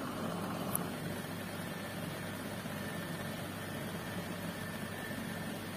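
Steady low machine hum with a hiss, unchanging throughout, and one small click under a second in.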